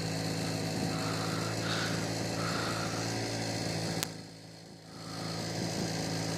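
A steady, low mechanical hum like a small engine running, with a sharp click about four seconds in and a brief dip in level after it.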